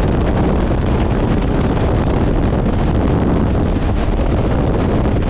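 Helicopter in flight: a steady, loud rush of wind buffeting the microphone over the rotor and engine noise.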